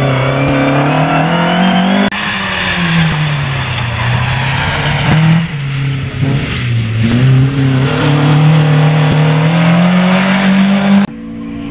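Historic rally cars' engines revving hard on a gravel stage, the engine note climbing and dropping repeatedly as they are driven through the corners, with abrupt switches from one car to the next.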